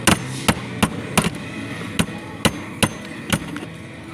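Hammer tapping, about ten sharp knocks in quick, uneven succession, with a faint low hum underneath.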